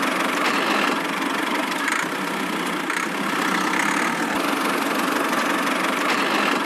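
Small motor of a DIY miniature tractor running steadily, a constant engine-like whirr with no change in speed.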